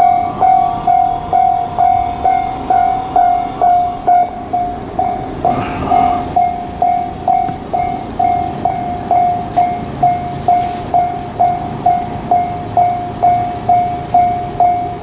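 Japanese railway level crossing warning bell ringing: one repeated electronic tone, a little over two strikes a second, steady throughout. A brief burst of noise breaks in about six seconds in.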